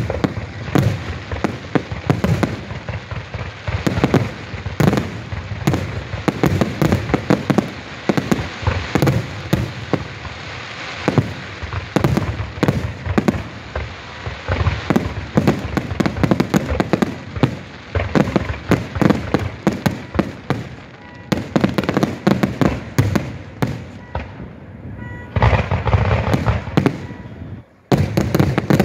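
Fireworks display finale: aerial shells bursting in a rapid, unbroken barrage of bangs, densest about three-quarters of the way through, with a brief lull just before the end.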